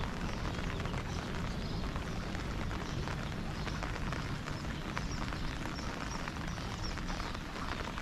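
Steady rain falling, with many small drops ticking.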